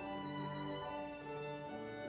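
Slow instrumental music played by bowed strings, holding long notes that change every half second or so.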